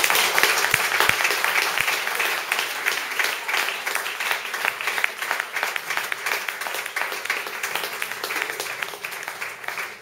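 Audience applauding, loudest at first and slowly thinning out toward the end.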